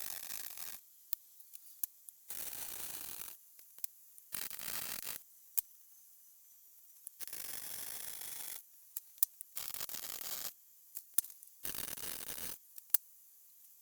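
MIG welder laying short spot welds: six separate bursts of crackling arc, each about a second long, with sharp clicks between them.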